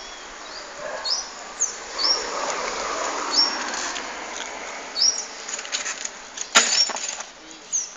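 A bird repeating short, high chirps that hook upward, scattered irregularly through, over steady outdoor background noise. One sharp knock sounds about two-thirds of the way in.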